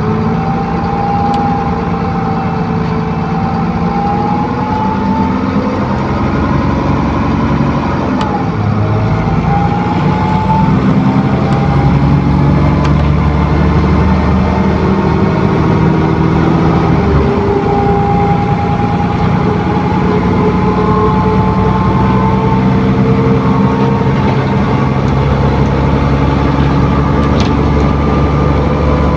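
Diesel engine of an ADL Enviro400 bus on a Trident chassis with a Voith automatic gearbox, heard from on board while the bus is driven. The engine note drops and climbs again twice, about 8 and 17 seconds in, as the gearbox changes gear. A thin whine rises and falls over the engine sound; this is the whoosh-and-hoover noise the uploader calls very odd.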